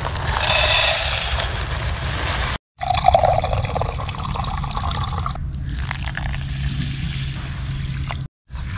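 Dry rice poured from a plastic bag into a small metal camping pot, a noisy hiss for about two and a half seconds. After a short break comes water trickling from the tap of a collapsible water carrier into a plastic cup.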